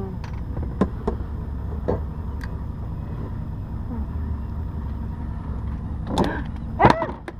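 Steady low rumble with a few light knocks and taps as a flounder is handled against a metal measuring ruler, and a brief voice near the end.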